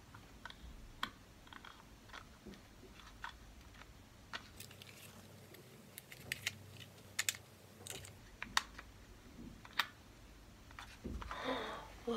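Scattered, irregular light clicks and taps of hard plastic as a small plastic toy lantern is turned over and worked in the hands.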